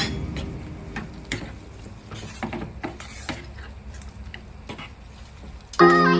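Scattered light clicks and taps of kitchen work, irregular and fairly quiet, with background music cutting back in near the end.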